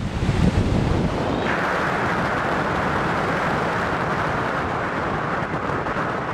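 Strong wind buffeting the microphone with a low, irregular rumble, over the steady wash of heavy surf breaking on the beach; the hiss grows fuller about a second and a half in.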